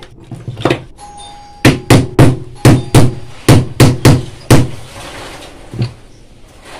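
Hammer tapping the end cover of a sewing machine motor back into place: about nine sharp strikes over three seconds, roughly three a second, starting about a second and a half in, then one lighter tap near the end.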